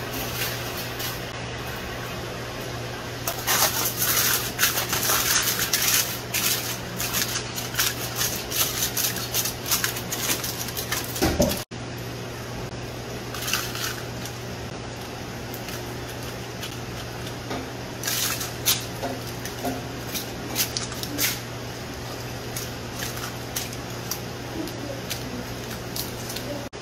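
Metal spoon scraping and tapping at a hardened baked salt crust around a whole fish, cracking and chipping it away in bursts of clicks and scrapes. A steady low hum runs underneath.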